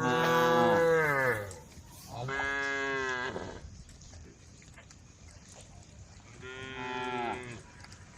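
Cows mooing to call the herd: three long moos, the loudest right at the start, another about two seconds in, and a quieter one near the end, each dropping in pitch as it ends.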